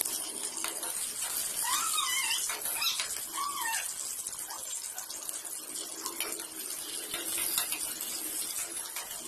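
Sliced shallots and green chillies sizzling in hot oil in a wok, with the spatula scraping and tossing them. About two to four seconds in, a few short squeaky calls rise and fall in pitch over the sizzle.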